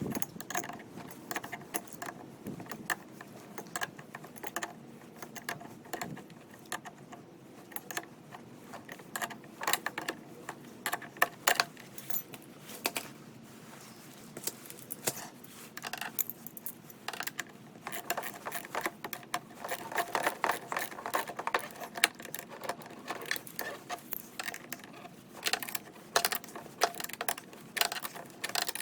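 Ratchet clicking in quick irregular runs as the 10 mm bolts holding a new rubber auger blade on a Snow Joe iON18SB snow blower are tightened, with small metallic clinks between the runs.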